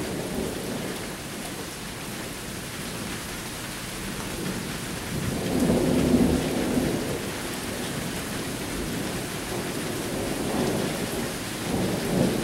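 Steady rain from a thunderstorm, with thunder rumbling low. The loudest roll comes about six seconds in and a shorter one near the end.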